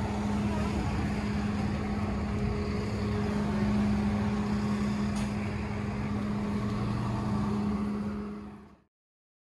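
A steady, engine-like mechanical hum over street-traffic noise, which cuts off abruptly near the end.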